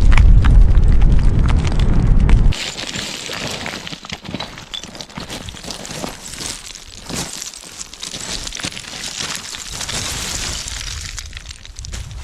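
Wind buffeting the microphone with a loud low rumble, cut off abruptly about two and a half seconds in. It gives way to a quieter crackling, rustling noise full of many small clicks.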